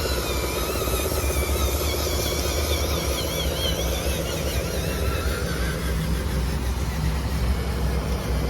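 Diesel-style engine sound of an RC construction model, running steadily with a low, fast-pulsing rumble.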